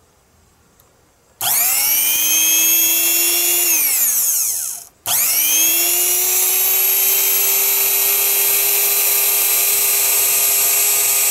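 Magic Bullet blender's brushed 120-volt motor, bare and unloaded, switched on about a second and a half in: it spins up to a high whine, runs for about two seconds, then winds down. It is started again about five seconds in and runs steadily, showing the motor still works.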